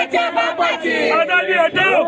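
A crowd shouting slogans together, many raised voices overlapping without a break.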